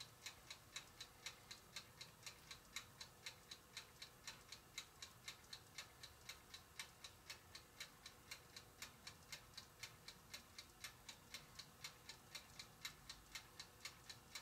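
Toaster oven's mechanical timer ticking steadily and faintly, about three to four ticks a second, while the oven is baking.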